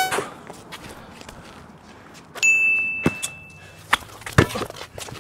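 A single bright bell-like ding about halfway through, ringing for over a second, a chime marking a made basket. After it a basketball thuds on the concrete court a few times.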